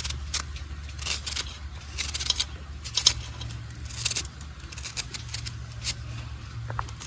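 A series of short, sharp clicks and scrapes at an irregular pace of about one or two a second, over a low steady hum.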